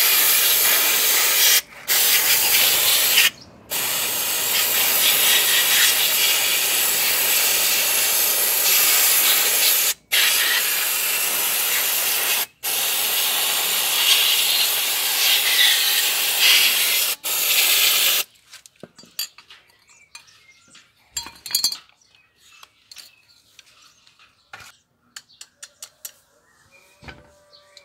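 Aerosol can spraying through its extension straw into a small carburetor to clean it: a loud hiss in several long bursts with short breaks. After about eighteen seconds the spraying stops and only faint clicks and knocks remain.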